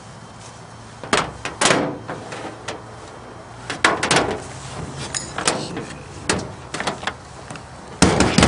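Irregular handling knocks and clicks, about eight over several seconds, with the loudest cluster near the end.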